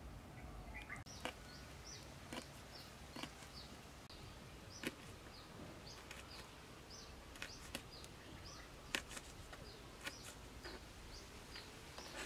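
Kitchen knife slicing red chilies on a plastic cutting board, giving sharp irregular knocks about once a second. Behind it a bird repeats short, high, falling chirps.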